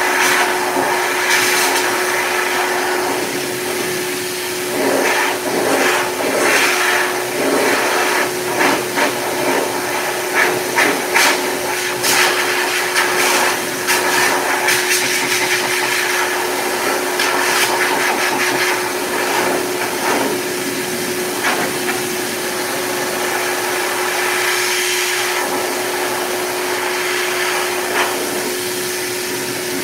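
Heavy-duty K9 high-velocity dog grooming dryer blowing through a Bernese mountain dog's thick coat: a steady motor whine under loud rushing air, fluttering unevenly in loudness through the middle as the nozzle moves through the fur.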